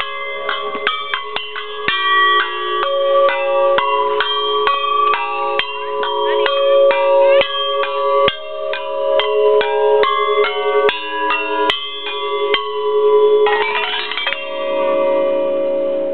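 Large outdoor tube xylophone struck with a mallet: a quick, unbroken run of notes that ring on and overlap. About fourteen seconds in comes a fast sweep across the tubes, and the last notes are left to ring.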